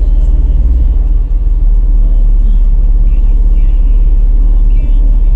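A car driving, heard from inside, with a steady heavy low rumble from the engine and road.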